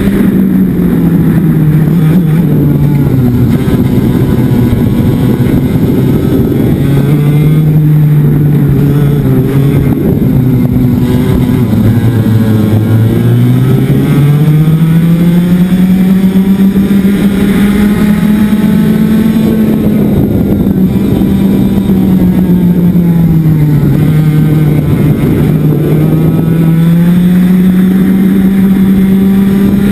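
Club 100 racing kart's engine heard onboard at racing speed. The pitch falls as it slows for corners and rises under acceleration, dropping lowest about twelve seconds in before climbing back up.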